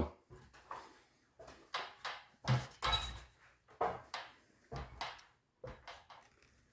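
About a dozen irregular knocks and scuffs, some with a dull low thud, as of a person climbing a ladder into an attic.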